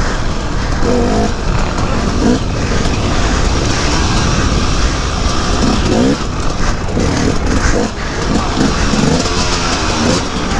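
KTM 250 EXC two-stroke dirt bike engine revving hard and blipping up and down, its pitch rising and falling many times as the throttle is worked.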